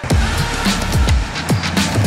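Electronic music with a fast, driving beat: deep kick drums that drop in pitch and busy, sharp high percussion.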